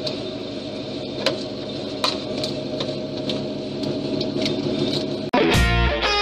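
A car engine running steadily, turning a screw-cone log splitter fitted to its rear wheel hub, with a series of sharp cracks as the cone bites into and splits firewood. About five seconds in, it cuts abruptly to loud distorted electric guitar music.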